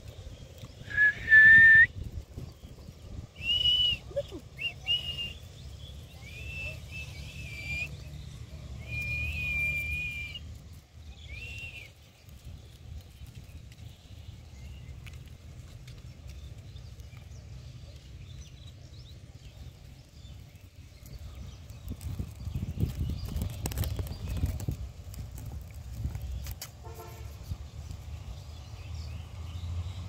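Rose-ringed parakeet giving short, clear whistled calls: one loud rising whistle about a second in, then a run of brief whistled notes, some in quick pairs, that stops about twelve seconds in.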